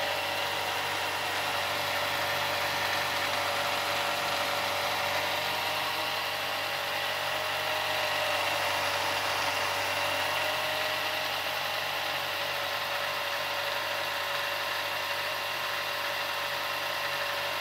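Mastercraft 4-inch belt and disc sander running steadily with nothing being sanded: an even motor hum with the whir of the spinning belt and disc. It sounds loud in the basement.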